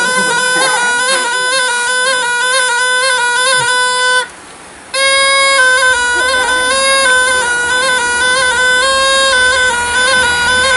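Snake charmer's gourd pipe (pungi) playing a loud, reedy, droning tune that stays close to one pitch with small steps. It breaks off briefly a little before the middle for a breath, then goes on.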